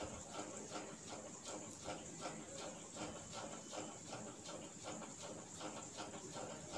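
Steady, even ticking, about four ticks a second, over a faint high steady hiss.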